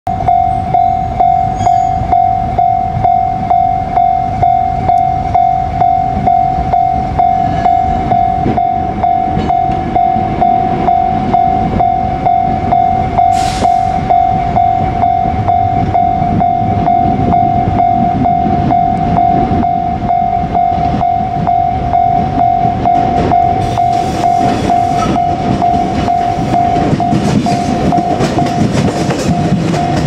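Japanese level-crossing alarm ringing its electronic bell, one steady tone repeating about twice a second. Over it, a JR Kyushu 817 series electric train's running noise and wheels on the rails build up over the last several seconds as the train reaches and crosses the crossing. There is a brief hiss about halfway through.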